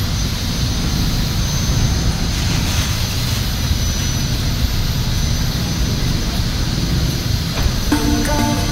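A loud, steady, engine-like roar of workshop noise. Music comes in near the end.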